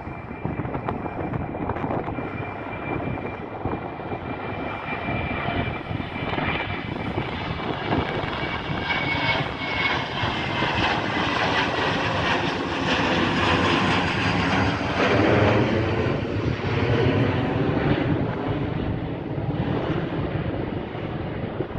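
Boeing 737 airliner climbing out after takeoff and passing overhead, its twin jet engines giving a steady rush that builds to its loudest a little past the middle. Over the first half a high whine slides down in pitch.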